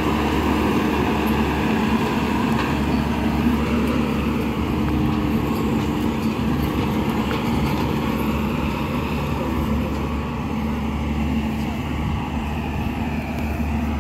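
Diesel engine of a tracked corn combine harvester running steadily at a constant pitch. It grows a little fainter in the second half.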